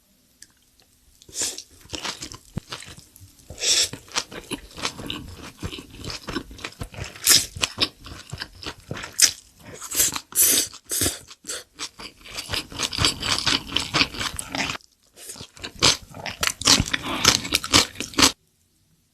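Close-miked ASMR eating: bites and crunching chews of crispy food, a dense, irregular run of crackles starting about a second in, with a brief pause near the three-quarter mark.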